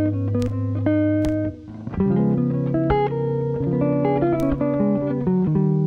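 Chill-out guitar loop: layered plucked guitar notes over low bass notes, with a short dip in the music about a second and a half in.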